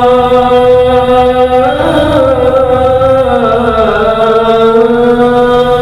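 A single voice chanting in the drawn-out Islamic devotional style of a muezzin, holding long melismatic notes that glide slowly up and down without pause for breath.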